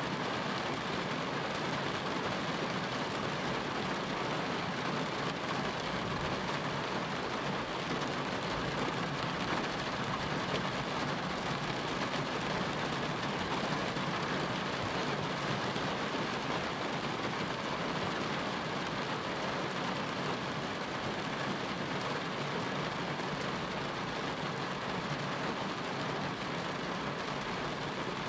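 Steady rain falling: an even hiss that holds at one level, with no single drops or thunderclaps standing out.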